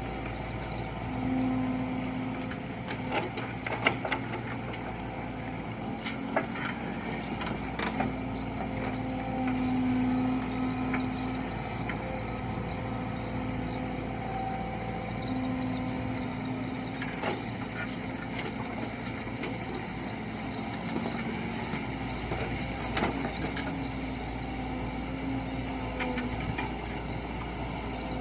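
Heavy diesel construction machinery running steadily. A low tone swells in and out again and again, with occasional sharp knocks and clanks.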